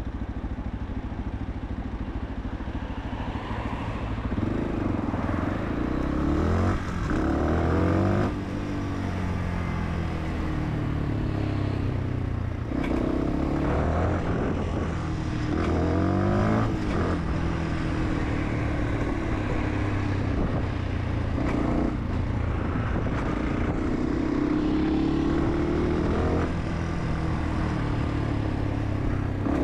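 Fantic 125 supermoto's single-cylinder engine under way, lower and steady at first, then revs climbing and dropping sharply again and again as it accelerates and changes gear, with wind and road noise.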